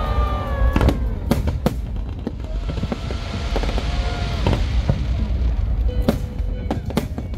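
A fireworks display with aerial shells bursting in sharp bangs, about ten of them and irregularly spaced, over a constant low rumble.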